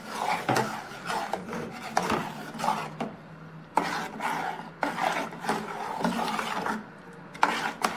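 Metal ladle scraping around the bottom of an aluminium pot as thick urad dal porridge batter is stirred, in repeated irregular rasping strokes. The stirring keeps the batter from forming lumps or catching on the bottom.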